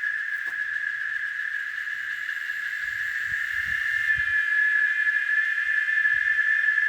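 Cicadas singing: a steady, shrill, high-pitched buzz that grows a little louder and fuller about four seconds in.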